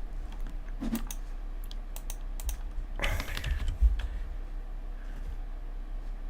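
Computer keyboard keystrokes, scattered single clicks at uneven intervals over a steady low mains hum, with a short rush of noise about three seconds in.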